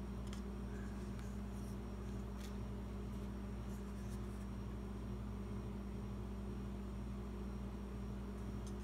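Steady low electrical hum with a faint even hiss: background room noise, broken only by a few faint light ticks.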